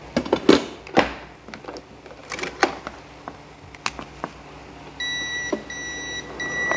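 Knocks and clicks of a rice cooker being handled, then about five seconds in the Panasonic IH rice cooker starts beeping, repeated high beeps about half a second long. This is its U15 alert, which warns that the steam-vent cap under the lid is not fitted.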